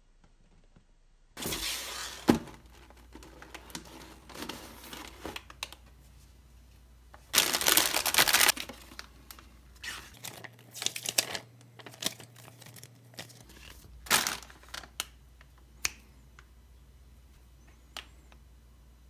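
Plastic kit packaging crinkling and being torn open, in irregular rustling bursts with scattered sharp clicks of parts and runners being handled.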